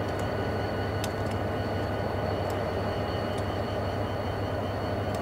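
EMD GP38-3 and GP40 diesel-electric locomotives running, a steady low engine drone with a thin high whine over it. A few sharp metallic clicks come about a second in, again near the middle, and once more a little later.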